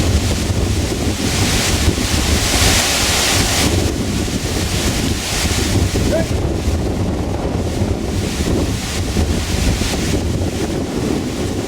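Strong gusting wind buffeting the microphone, a loud rushing noise that surges and eases in waves.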